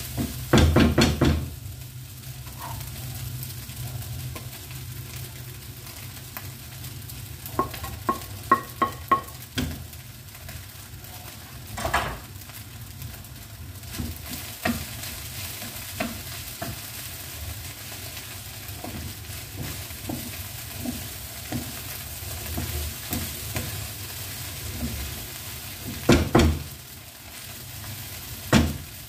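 Egg sizzling in a nonstick wok, stirred and scraped with a wooden spatula. There is a quick run of taps about eight seconds in, and louder knocks of the spatula against the pan now and then.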